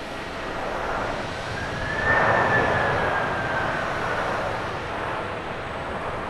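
Boeing 767-300ER airliner's jet engines during its landing roll: a loud rushing noise with a whine, both swelling to a peak about two seconds in and then slowly easing off.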